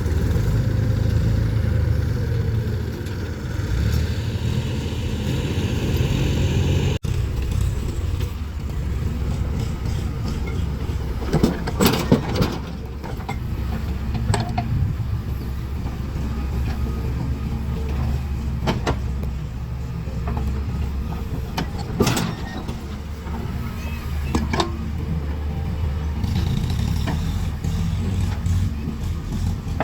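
Diesel engine of a JCB 3DX backhoe loader running steadily under work while it loads a tractor trolley, with sharp metallic clanks now and then.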